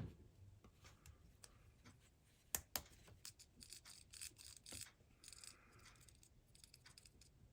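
Faint scattered clicks and light scratching of small parts being handled on a workbench, with a louder pair of clicks about two and a half seconds in and two short scratchy rustles near the middle.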